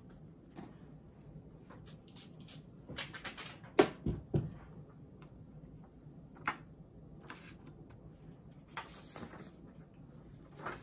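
A person sniffing a paper perfume test strip held to the nose: a few short breaths in through the nose, with small rustles and clicks of handling. A sharp knock with a dull thump right after, about four seconds in, is the loudest sound.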